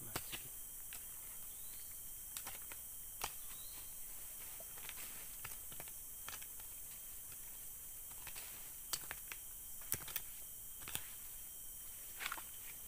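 Short-handled digging tool chopping and scraping into soil and roots, with irregular sharp strikes roughly once a second.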